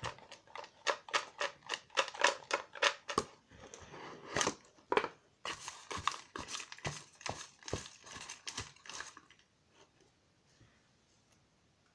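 Folded paper raffle slips rustling and scraping in a small cardboard box as a hand stirs through them, a quick run of short crackly rustles that stops about nine and a half seconds in.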